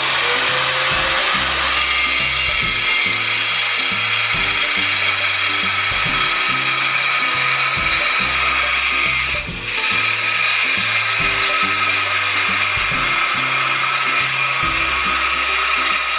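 Angle grinder with a turbo diamond wheel (Mollar Turbo Gold) cutting a thick ceramic tile: a loud, steady grinding whine whose motor pitch rises as it spins up in the first seconds. The pitch eases off briefly about halfway through, then the cut goes on.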